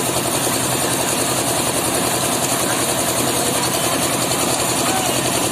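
Engine of concrete-site machinery running steadily at a constant speed, with a fast, even chugging.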